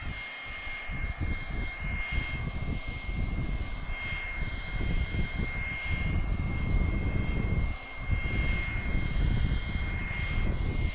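Hair dryer blowing close to the listener: a steady high motor whine over the gusting rush of its air stream, which dips briefly about eight seconds in.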